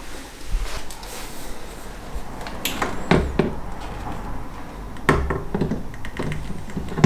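Handling noise as a brake booster with its master cylinder and reservoir is carried over and pressed against a car's bare metal firewall: several dull knocks and clunks, the loudest right at the end.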